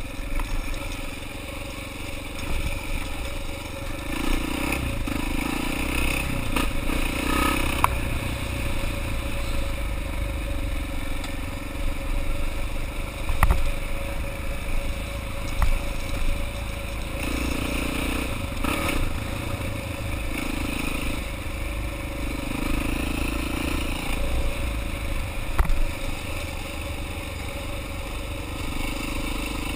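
Honda XR400R's air-cooled four-stroke single-cylinder engine running as the dirt bike rides along a gravel road, its note rising and falling with the throttle. A few sharp knocks and clatter come from the bike over the rough surface.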